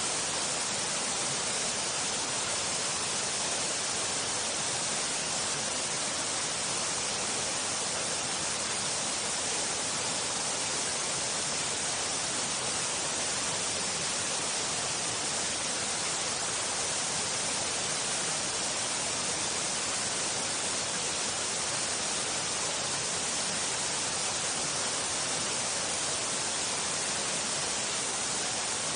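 Waterfall: falling water rushing steadily, an unbroken hiss strongest in the high range.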